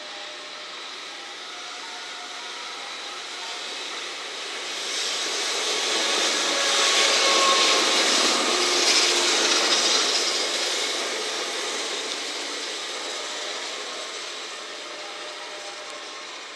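A 443 series electric inspection train running past on the rails. Its wheel-and-rail noise builds as it approaches, is loudest as it passes close by in the middle, then fades as it moves away.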